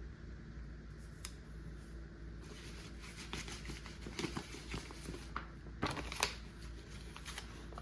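Paper and sticker sheets being handled and shuffled, rustling, with a few sharp clicks and taps. A low steady hum sits under it throughout.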